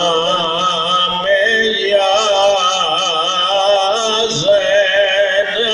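A man's voice chanting a Karbala lament in the sung recitation style of a majlis zakir, through a microphone. It holds long, wavering notes that shift in pitch every second or so.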